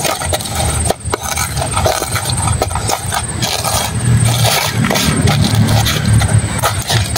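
Knife blade tapping and scraping on stone, crushing chilies for a sambal in short, irregular strokes. A steady low rumble, like a motor, runs underneath and grows louder about halfway through.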